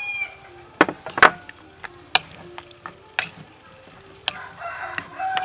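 Sharp, separate knocks and clicks of a wooden spoon against a mortar and plate as peeled quail eggs are scraped in and stirred, about half a dozen taps with the loudest about a second in.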